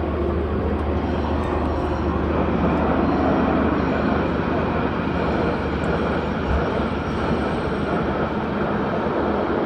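Agusta Caweel CW-86 aircraft running steadily: a constant engine rush with a steady low drone underneath, no change in pitch or level.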